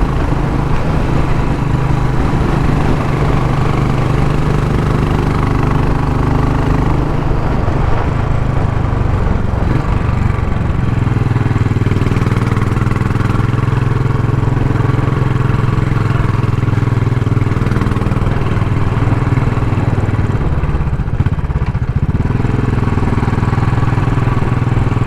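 Royal Enfield Classic 500's single-cylinder engine running steadily as the motorcycle is ridden, its note dipping briefly about three-quarters of the way through.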